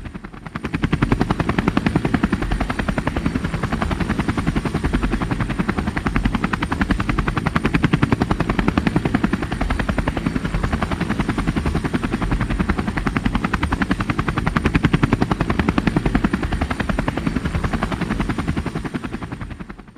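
Helicopter rotor blades beating in a fast, steady rhythmic thudding, with a thin high whine over it. The sound dips briefly at the start and fades near the end.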